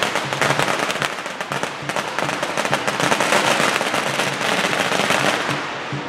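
Strings of firecrackers going off in a rapid, continuous crackle of sharp pops.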